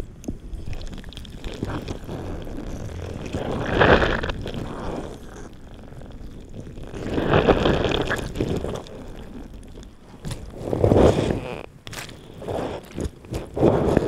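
Wet, squelchy, creaking sounds of boggy, mossy ground heard through a contact microphone in a probe spiked into the soil, swelling up each time a boot presses down beside it, several times. A low rumble of wind hitting the probe runs underneath at high gain.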